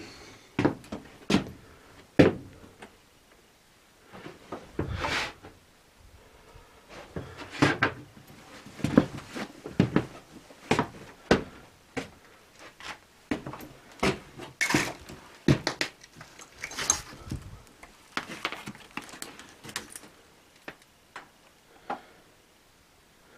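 Irregular knocks, clunks and scrapes in a small room from someone handling wooden cabinet doors and a drawer and stepping over debris, with short quiet gaps between them.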